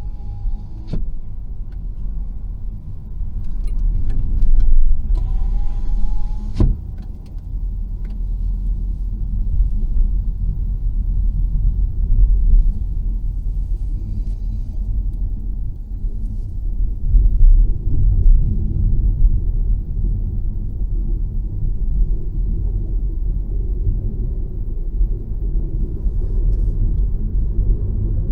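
Car driving on the highway: a steady low rumble of road and engine noise inside the cabin, with a couple of sharp clicks near the start.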